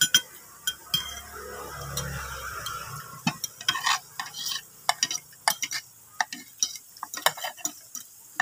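A spoon and fork clinking and scraping against a plate while eating, in a run of short, irregular clinks.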